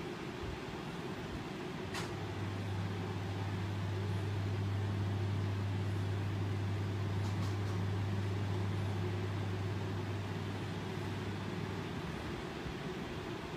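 Steady low mechanical hum that grows a little louder in the middle, with a faint click about two seconds in.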